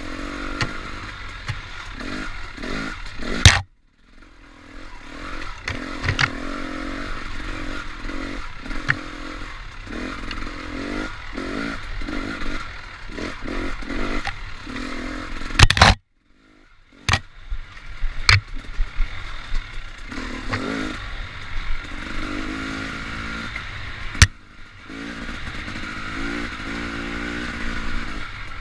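Dirt bike engine revving up and down while riding a rough singletrack, with clattering knocks from the bike over the trail and brush scraping past. The sound cuts out abruptly twice, about four and sixteen seconds in.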